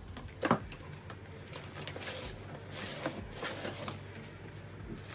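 Cardboard box and packaging being handled as a folded padded baby play mat with its plastic hoop is taken out: a sharp knock about half a second in, then scattered rustling and scraping.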